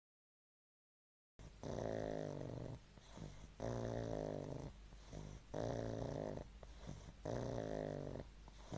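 A sleeping pug snoring: four snores about two seconds apart, beginning after about a second and a half of silence.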